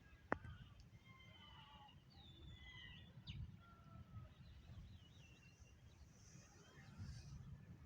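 Faint birds chirping, with many short whistled calls, some sliding down in pitch, over a low rumble, and a single sharp click just after the start.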